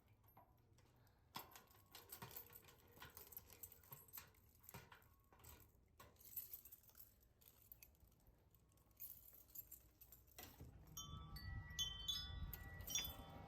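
Near silence with faint scattered clicks. Near the end a faint low hum comes in, with a few short ringing tones.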